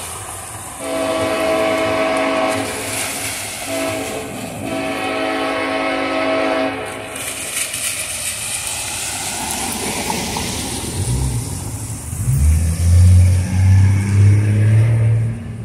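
Diesel locomotive horn sounding a crossing signal: a long blast, a brief short one, then another long blast. Several seconds later the locomotive's diesel engine rumbles in louder and louder as it draws near.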